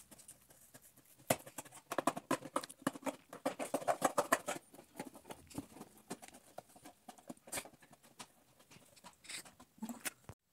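A cardboard drink carton being cut in half: a dense run of crisp cutting clicks and crunches starting about a second in, then scattered single clicks and handling rustles.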